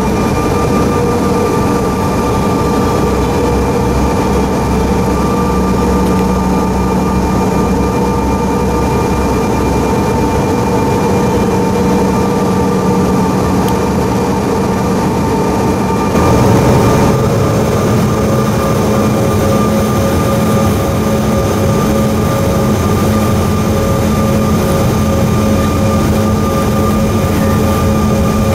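Inside the cabin of a Bombardier CRJ-700 taxiing: its rear-mounted General Electric CF34 jet engines give a steady whine over a rumble. About halfway through, the engine tone steps up in pitch and gets a little louder as thrust is added.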